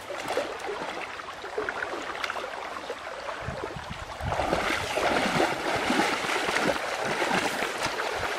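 River water sloshing and splashing as a person wades through it; the splashing grows louder about four seconds in as the wading turns into quick steps through the shallows.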